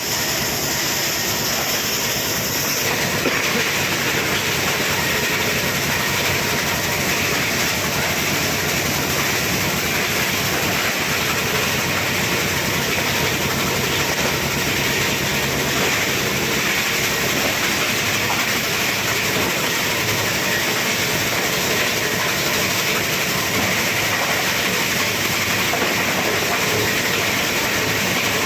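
24-inch plastic scrap grinder machine running steadily with a loud, dense clatter.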